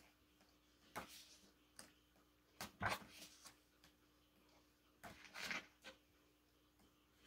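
Pages of a thick album photobook being turned by hand: several short paper swishes and rustles, the loudest about three seconds in and another around five and a half seconds.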